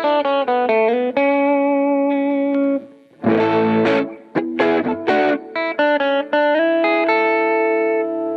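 Squier Classic Vibe Starcaster electric guitar played through an amp, with its upgraded wiring harness and tone pots. Strummed chords and short picked notes, with chords left to ring twice: one about a second in, and another near the end.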